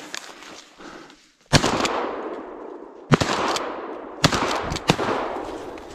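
Shotgun fired four times at a wild boar: sharp shots at uneven intervals starting about a second and a half in, each trailing off in a long echo.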